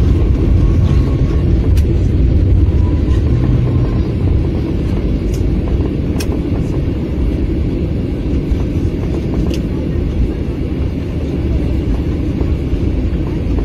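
Steady loud rumble inside a jet airliner's cabin during the landing roll on the runway, with spoilers raised. The rumble eases a little after about four seconds as the plane slows.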